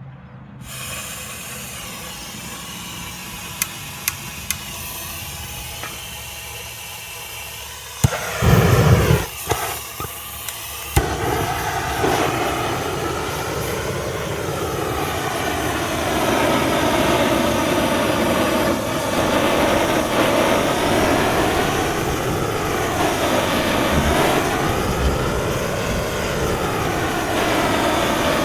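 Gas torch being lit and run to heat a seized driveline slip joint: a fainter hiss with a few clicks, a loud uneven burst as it catches about eight seconds in, then a steady flame roar.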